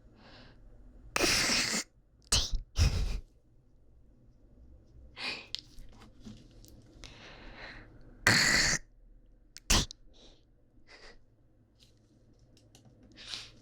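Mock hawk-and-spit noises, 'kkak-tweh', made with the throat and mouth close to the microphone: a harsh throat-clearing rasp followed by a short spitting puff, repeated several times with pauses between, the loudest about eight seconds in.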